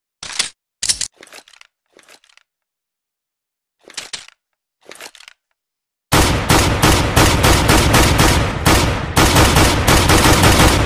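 Dual-pistol gunfire sound effect: a few short sharp metallic clicks of the guns being readied, then from about six seconds in, loud rapid fire, several shots a second, running without a break.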